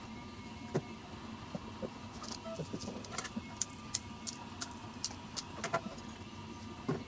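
Scissors snipping a paper straw into short pieces: a run of quick, sharp snips, with a couple of light knocks of tools set down on a wooden tabletop.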